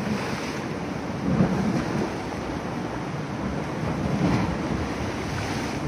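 Sea waves washing against shore rocks, with wind on the microphone; the wash swells about one and a half seconds in and again about four seconds in.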